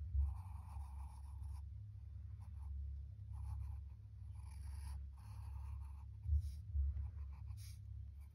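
Pencil scratching on sketchbook paper in a string of short strokes, over a low steady hum. A couple of dull low thumps come about six to seven seconds in.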